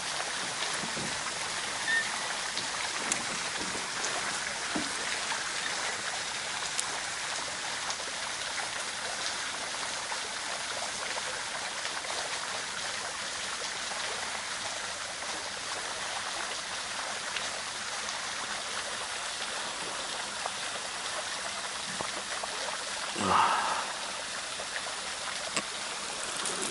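Steady hiss of running water, like a small stream trickling. A brief louder sound comes about twenty-three seconds in.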